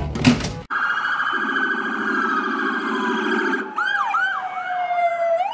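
Electronic siren of a toy police car: a long, slowly falling wail, then about four quick rising whoops, then the wail rising again.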